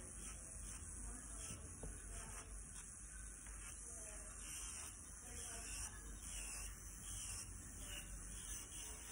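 Quiet room tone with a steady hiss and low hum, and faint, indistinct background sounds that may be distant voices.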